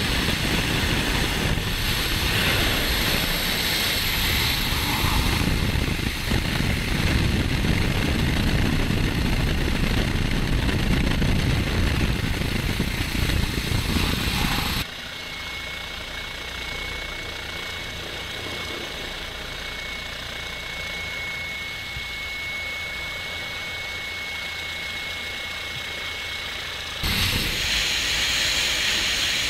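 Helicopter in low flight, heard on board: a loud, steady noise of rotor, engine and rushing air. About halfway through it drops abruptly to a quieter steady sound with a thin high whine, then jumps back to the louder noise a couple of seconds before the end.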